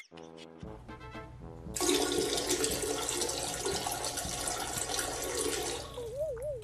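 A toilet flushing: a loud, steady rush of water that starts about two seconds in and lasts about four seconds. It is preceded by a short stretch of music and followed near the end by a brief wavering tone.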